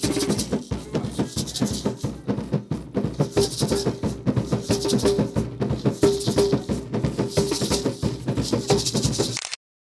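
Rhythmic Garifuna drumming with the shell rattles tied below a Wanaragua dancer's knees shaking in time with the dance steps. The sound cuts off suddenly about half a second before the end.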